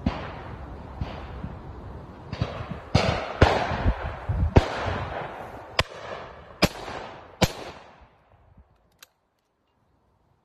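Shotgun shots fired in quick succession, about a dozen within eight seconds and more than one double gun could fire, so from several guns, each with an echoing tail. The firing stops about eight seconds in.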